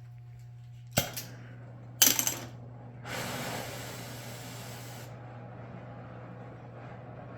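Oxy-acetylene torch being lit: a sharp click about a second in and a louder short burst of crackle about two seconds in, then a hiss of gas for about two seconds that settles into a quieter steady rush.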